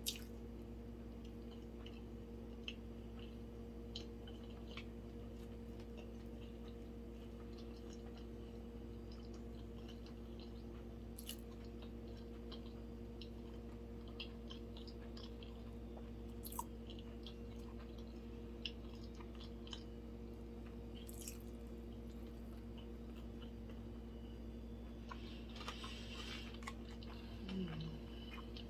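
Close-miked chewing and wet mouth sounds of someone eating sushi: faint scattered clicks and smacks, busier near the end, over a steady low electrical hum.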